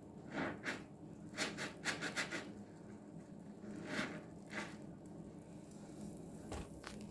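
A soapy sponge being squeezed and worked in dish-soap foam: short wet squelches, with a quick run of about five a second or so in, a couple more around the middle and two near the end.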